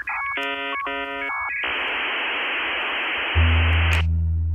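Electronic beeps and chords of steady tones, then a steady static hiss that cuts off about four seconds in. A deep bass drone comes in shortly before the hiss stops.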